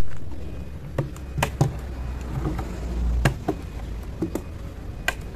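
Small wooden folding tables being handled: a series of sharp hollow wooden knocks and clacks, spaced irregularly a second or so apart, as the tables are turned over and their hinged legs are folded, over a low steady rumble.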